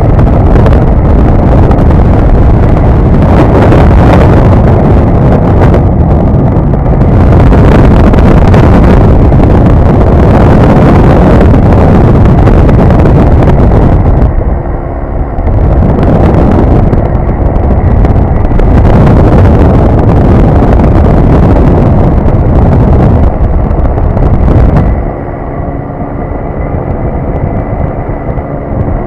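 Heavy wind buffeting on the microphone of a flexwing microlight trike in cruise flight, loud enough to hit the top of the scale, over the steady drone of its Rotax 912S engine and pusher propeller. The wind eases briefly about halfway through and again for the last few seconds, and the engine's steady hum comes through more clearly then.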